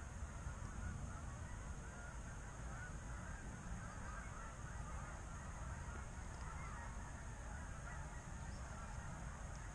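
A large flock of Canada geese flying over, honking continuously in many overlapping calls, above a low steady rumble.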